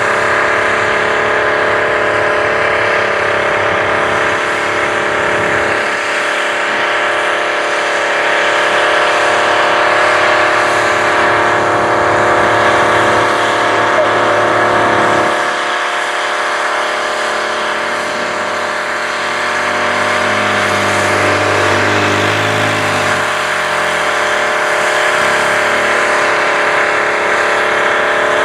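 Wright Earthquake four-wheel-drive tractor's Detroit Diesel engine running steadily under heavy load, pulling a 20-bottom plow through the field.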